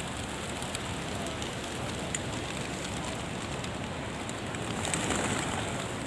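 Steady rain-like rush of outdoor noise. About five seconds in it swells, as a flock of feral pigeons takes to the air with a flurry of flapping wings.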